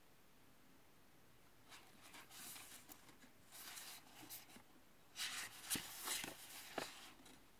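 Paper pages of a paperback book rustling as a hand turns a page and then presses the new spread flat. The faint, dry rustling starts about two seconds in, and the loudest crinkles and a few sharp ticks come near the end.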